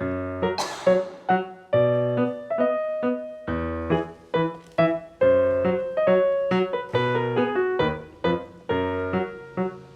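Background piano music: a melody of struck notes that ring and fade, over low bass notes.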